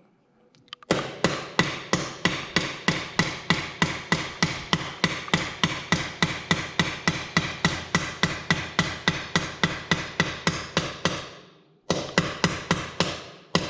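Hammer tapping a bicycle star nut down into the fork's steerer tube: steady metallic taps about three a second, stopping for about a second near the end and then carrying on.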